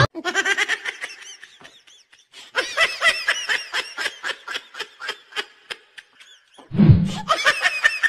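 Troll laugh sound effect: a person's rapid laugh in quick pulses of about four a second, with a louder, deeper burst near the end.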